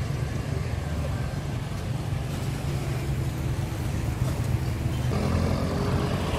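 Street traffic: a steady low rumble of passing cars and motorbikes. About five seconds in, a pitched engine sound and more hiss join in.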